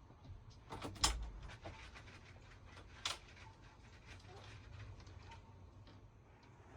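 Household handling sounds: a sharp knock with a low thud about a second in, another sharp knock about two seconds later, and lighter clicks and taps between.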